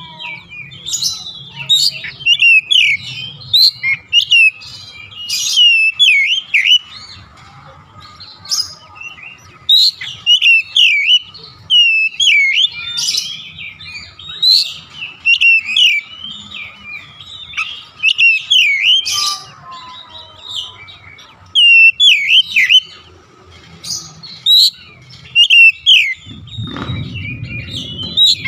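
Oriental magpie-robin singing: loud, rapid phrases of sweeping whistled notes that rise and fall, repeated about once a second with short breaks. A low rumble joins near the end.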